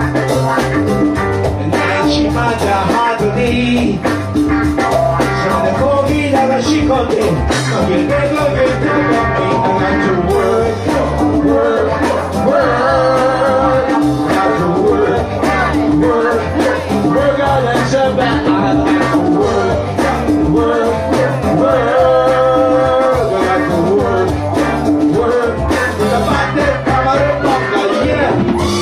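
A live band playing a song with a drum kit, guitar and a sung vocal.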